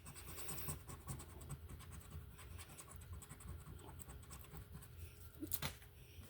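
A quarter scratching the coating off a scratch-off lottery ticket in quick, short strokes, with a brief sharper knock a little after five seconds in.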